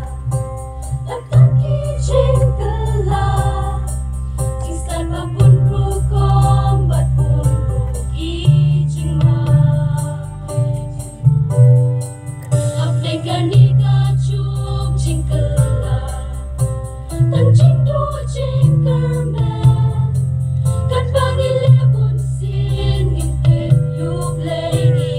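A large church choir singing a Christian hymn in parts under a conductor, with a heavy low rumble underneath.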